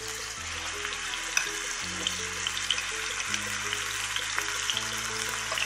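Marinated chicken strips sizzling in hot oil in a nonstick frying pan over high heat, just added to the pan, with a steady hiss and frequent small spattering pops. Soft background music with slowly changing chords plays underneath.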